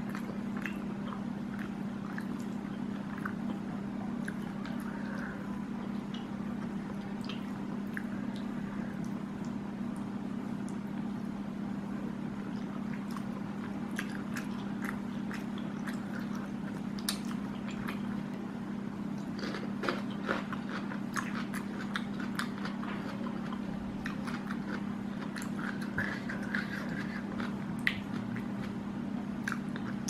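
Close-up chewing and wet mouth sounds of a person eating spicy squid and rice by hand, with many small clicks and smacks, more frequent in the second half. A steady low hum runs underneath.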